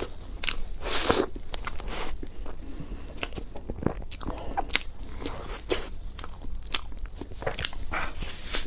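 Close-up eating sounds: bites and chewing into a large soft bread loaf coated in meat floss, with many small clicks and a few louder bites.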